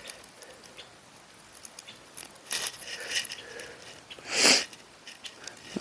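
Hands working at fishing tackle: small scattered clicks and rustles, with a short hissing rush about four and a half seconds in.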